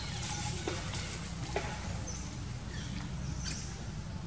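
Outdoor forest ambience: a steady low background rumble with scattered faint clicks and a few short, high chirps about halfway through and again near the end.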